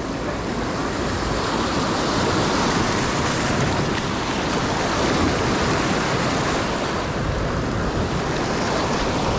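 Sea surf breaking and washing over a rocky shoreline, with wind buffeting the microphone. The rush of water builds over the first couple of seconds, then holds steady.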